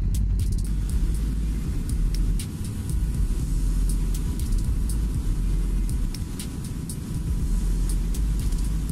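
Motorcycle riding at road speed, heard through a helmet-camera microphone as a steady low rumble of wind and engine, dipping briefly twice.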